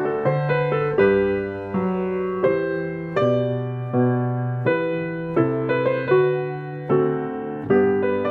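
Solo piano playing a slow piece: chords and single notes struck about once a second, each left to ring and fade.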